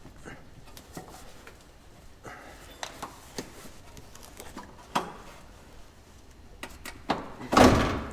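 Scattered clicks and knocks of hand work on a car's exhaust hangers and bolts, with a louder clunk shortly before the end.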